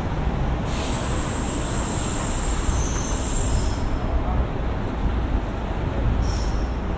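Steady low rumble of roadway traffic along an airport terminal's curbside road, with a thin high whine from about one to four seconds in and two short hisses, one near the start and one near the end.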